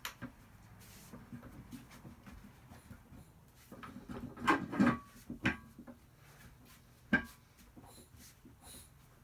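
Metal clanks and knocks from working a vintage manual bead breaker on a tire, a cluster of them with a brief ringing about four to five and a half seconds in, then one sharp click a little after seven seconds.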